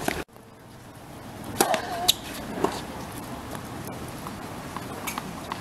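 Tennis serve: a racket strikes the ball with a sharp pop about a second and a half in, followed by two more sharp pops about half a second apart as the rally starts.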